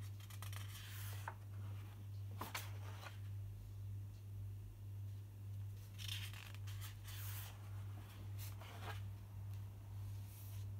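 Large sheets of drawing paper are handled and slid across a table in four or five short rustling passes as the drawings are turned over. A steady low hum runs underneath.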